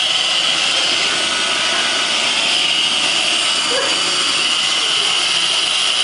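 Roomba robot vacuum running steadily: a constant whirring hiss with a high whine.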